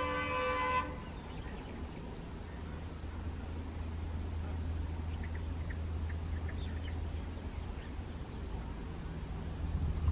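Diesel locomotive approaching, its engine a steady low drone. A brief pitched call sounds in the first second, and faint bird chirps come in midway.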